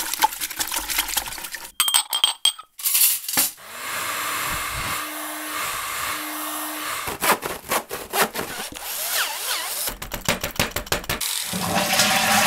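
A quick run of household-chore sound effects: clinking, like dishes being washed up, then a vacuum cleaner running for a few seconds, then rapid sawing and knocking on wood as the chest of drawers is repaired.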